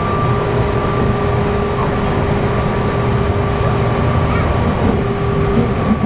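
Running sound of a Meitetsu 6000 series resistance-control electric train heard inside the passenger car: a steady low rolling rumble with a steady motor-and-gear whine that holds one pitch.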